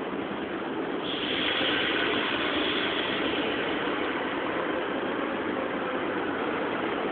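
Steady rumbling noise of a train at the station. A hiss brightens about a second in and eases off a few seconds later.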